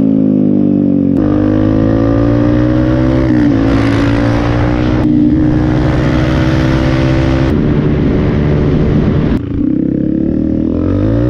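Dirt bike engine running at speed. Its steady note shifts abruptly in pitch a few times, and the revs rise near the end.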